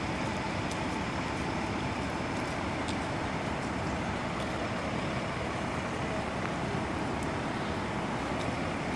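Steady, even rushing noise with no distinct events, the outdoor roar of a flooded street scene where floodwater and road noise cannot be told apart.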